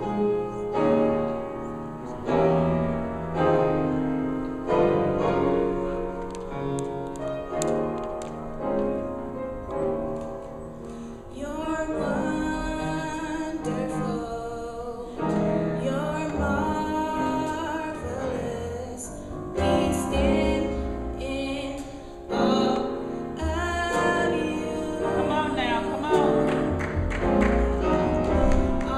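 Church choir singing in harmony with piano accompaniment.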